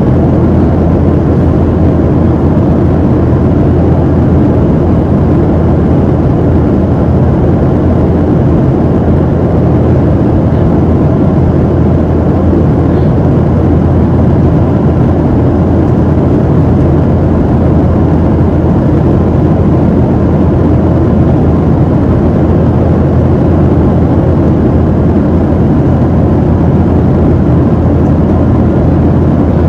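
Steady cabin noise inside a Boeing 737-700 in flight: its CFM56-7B engines and the airflow make a loud, even, low drone.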